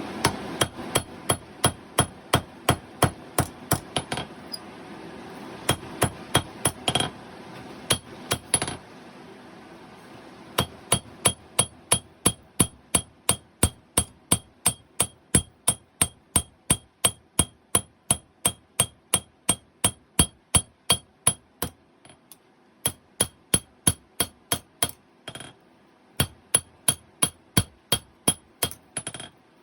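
Hammer blows forging hot 5160 steel on an anvil, about two a second, each with a high metallic ring. The blows come in runs broken by short pauses.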